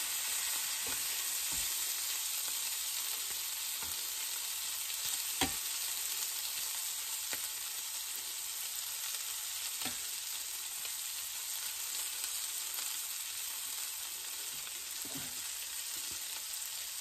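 Diced potatoes, okra and corn frying in butter in a cast iron skillet: a steady sizzle. A metal spatula stirs through the food at the start, and a few sharp ticks stand out now and then.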